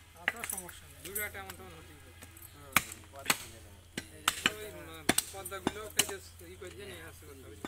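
A butcher's cleaver chopping beef on a wooden log chopping block: a dozen or so sharp, unevenly spaced knocks as the blade strikes through the meat into the wood.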